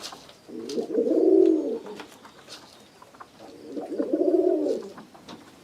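Domestic pigeon cooing: two low, rolling coo phrases, each a little over a second long, a couple of seconds apart.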